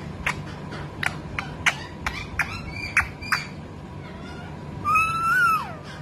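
Rose-ringed parakeet making a quick series of short, sharp chirps, then one longer drawn call that rises slightly and falls away near the end.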